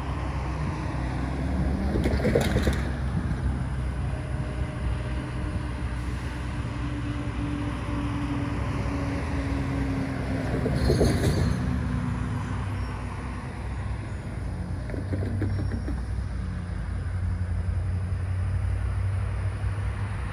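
Road traffic: vehicles, including a pickup truck, passing on a street. Two louder passes swell and fade about two and eleven seconds in, over a steady low engine rumble.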